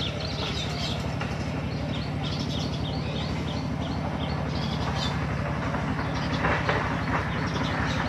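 Many short, high chirps of small birds, scattered and quick, over a steady low hum with a fast, even flutter.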